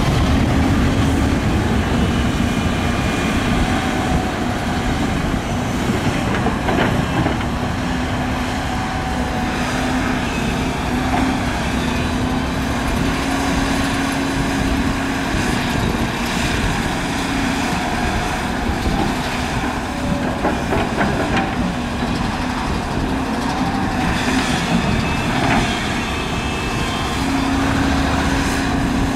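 Heavy diesel excavator engine and hydraulics working steadily, with a sustained low hum and a few sharp metal knocks.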